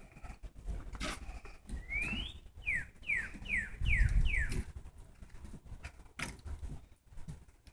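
A songbird sings one rising whistle, then a quick run of about five falling whistled notes. A low rumble sounds under the song around the middle.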